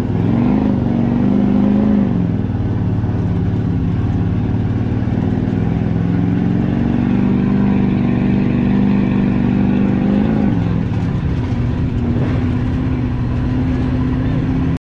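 Recovery pickup truck's engine running under load while driving across sand, its pitch rising about half a second in and falling back about two seconds in, then holding steady; it eases off and picks up again about ten seconds in.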